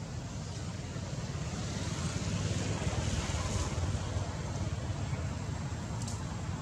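Steady low rumble of outdoor background noise, growing louder about two seconds in, with a faint click near the end.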